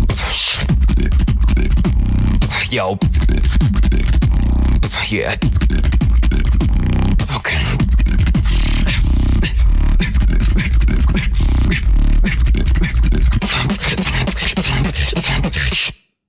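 Beatboxing: a deep, raspy bass line played over sharp percussive clicks and snares, cutting off suddenly near the end.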